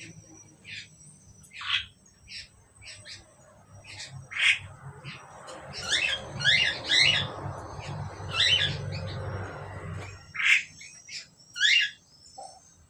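Asian pied starlings (jalak suren) calling with many short, harsh squawks, coming fastest in a cluster about halfway through, over a low steady hum that stops near the end.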